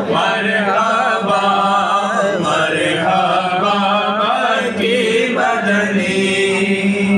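Men's voices chanting an Urdu devotional naat together, sung melodically over a steady low held note.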